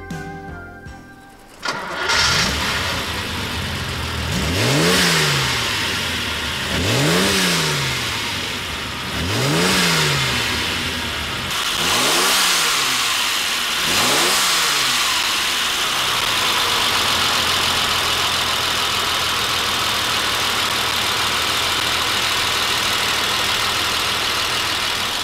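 Ferrari 365GTB4 Daytona's carburetted V12, fed by six Weber carburettors, comes in suddenly about two seconds in. It is blipped five times, each rev rising and falling back, about two and a half seconds apart. It then settles into a steady idle.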